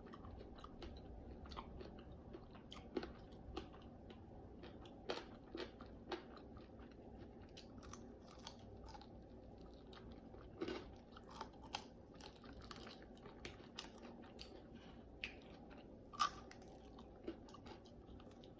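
Chewing and biting into naked (unbreaded) chicken wings: quiet, irregular wet mouth sounds and clicks, with a few louder smacks.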